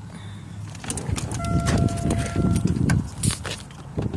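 Rustling, knocking and microphone handling noise as someone climbs out of a parked car with the phone in hand. A steady high tone sounds for about a second and a half midway.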